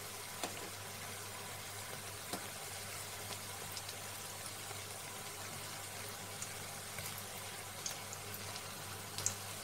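Lote (Bombay duck) fish fritters frying in hot oil in a wok: a steady bubbling sizzle with a few small pops scattered through it.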